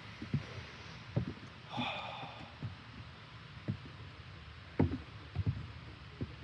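Footsteps thudding irregularly along a forest trail over a steady rushing hiss. A brief higher-pitched sound comes about two seconds in.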